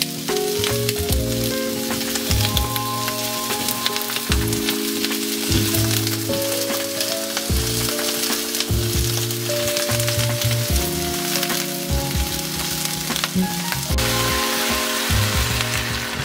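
Sliced onions and glass noodles frying in a hot pan: a steady sizzling hiss with fine crackles as soybean sprouts are tipped in. Background music with slowly changing held chords plays along.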